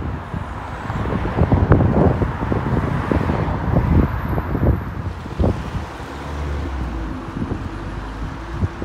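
Wind buffeting the microphone over the rumble of a receding train. About six seconds in this gives way to the steady engine drone of an approaching Intercity Express Train running on its diesel engines.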